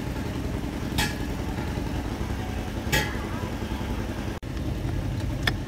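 Two sharp metal clinks about two seconds apart, from hand tools being worked on a bare truck engine block, over a steady low rumble.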